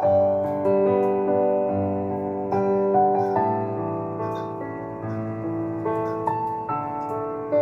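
Soft, slow background music played on piano, notes struck one after another and left to ring.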